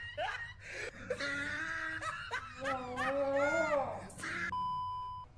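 A sleeping person's strange snoring: high, drawn-out wailing and snickering noises with the pitch sliding up and down, then a steady electronic beep near the end.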